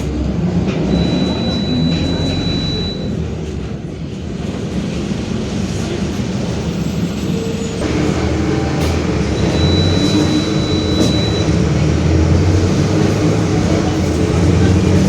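Mercedes-Benz OF-1721 BlueTec 5 bus's four-cylinder diesel engine and driveline heard from inside the cabin while the bus drives. It eases off a few seconds in, then pulls harder from about halfway. The differential growls, which the uploader flags as a fault, and a faint high steady tone sounds twice.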